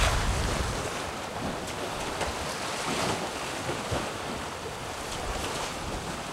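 Steady rush of water along the hulls of a sailing catamaran moving through choppy sea under sail, mixed with wind. Wind buffets the microphone with a low rumble that eases after about the first second.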